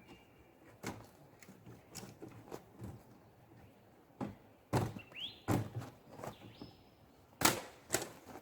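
Dry wood cracking and knocking: a run of irregular sharp snaps and thuds, loudest and closest together in the second half. A few faint bird whistles sound above them.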